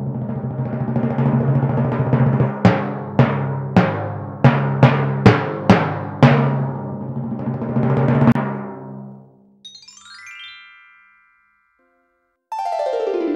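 Intro music: a timpani roll with a run of about eight hard accented strikes between roughly 2.5 and 6 seconds in, then dying away. A faint short high tone follows, and a loud sweeping glide that falls and then rises starts near the end.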